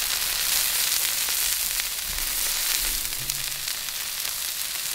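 Beef burger patties and buttered Texas toast frying on a hot flat-top steel griddle: a steady, even sizzling hiss.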